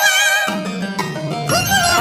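Nursery-rhyme music, with a wavering held high note in the first half-second and a short rising pitched sound near the end.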